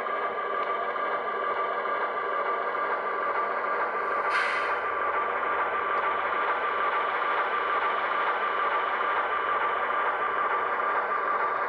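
HO scale Alco RS1 model diesel locomotive's sound decoder playing a steady engine running sound through its small onboard speaker, with a short hiss about four seconds in.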